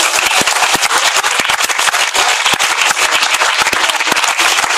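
Audience applauding: dense, steady hand-clapping from many people.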